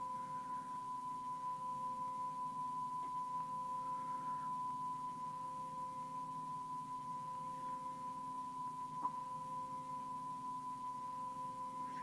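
Steady, unbroken test tone from a television colour-bar signal, played back off an old VHS tape, with a faint low hum beneath it. A faint click about nine seconds in.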